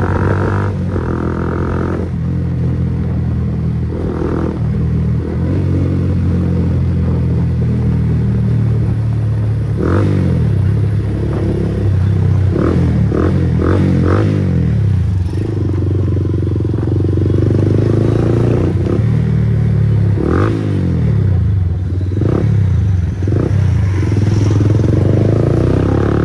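Bajaj Pulsar NS160's single-cylinder engine running through an aftermarket Akrapovic full-system exhaust while riding in traffic. The note is loud and rises and falls several times as the throttle opens and closes, with several short sharp sounds about halfway through.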